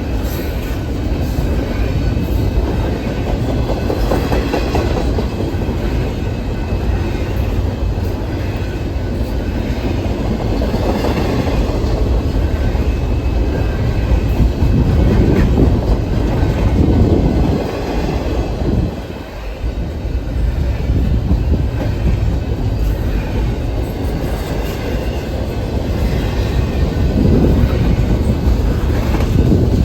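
Norfolk Southern freight train rolling past, its cars' wheels clacking steadily over the rail joints, with a brief dip in the noise about two-thirds of the way through.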